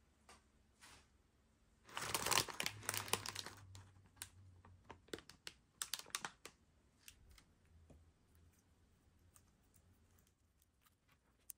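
Plastic candy-kit packaging crinkling as it is handled, loudest in a burst about two seconds in, followed by lighter crackles and small clicks of hard plastic parts being handled.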